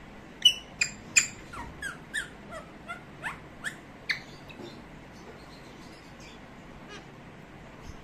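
Pet parakeet calling: a quick run of about a dozen sharp, high squawks and chirps, several sliding down in pitch, the first the loudest, dying away about halfway through.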